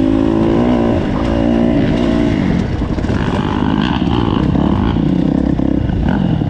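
KTM four-stroke motorcycle engine running, its pitch dropping as the revs fall about two seconds in, then running on unevenly.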